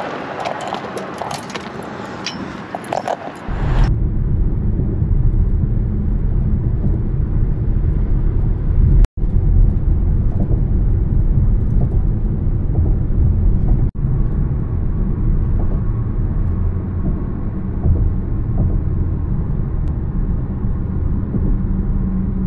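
Steady low road and engine rumble inside a car's cabin while driving on a highway. Before it, about three and a half seconds of lighter outdoor sound with scattered small clicks.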